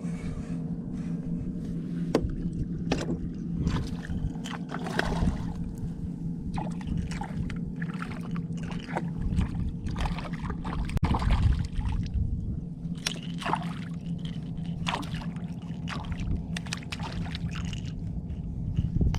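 Shallow water sloshing and splashing in short, irregular bursts, over a steady low hum.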